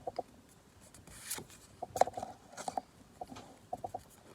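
Pokémon trading cards being handled: quick papery flicks, scrapes and small taps as cards are slid off the front of a freshly opened pack stack and moved to the back one by one.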